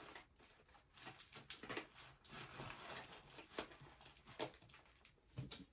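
Faint rustling and light irregular taps of hands handling paper filler and small items.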